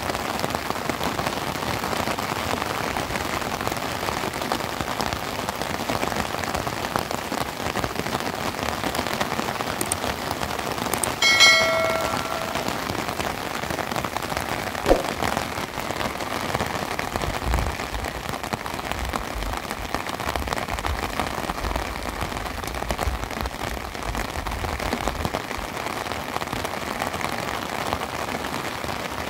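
Steady rain falling, an even hiss of drops on surfaces. About eleven seconds in there is a brief ringing sound with several pitches at once, and a short click follows a few seconds later. Low rumbling runs through the second half.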